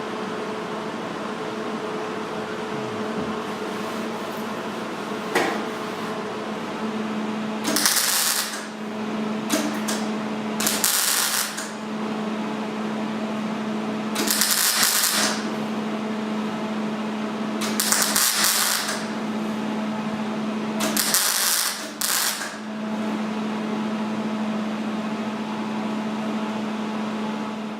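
MIG welder stitch-welding a sheet-metal patch panel into a car body: about six short bursts of arc crackle, each half a second to a second long, over a steady hum.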